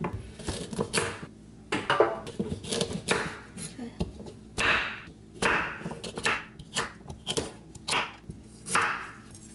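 Chef's knife cutting through firm raw carrots and knocking on a bamboo cutting board, in uneven strokes.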